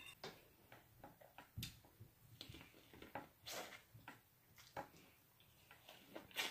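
Faint, irregular crunches and wet mouth clicks of a person biting kernels off an ear of sweet corn on the cob and chewing.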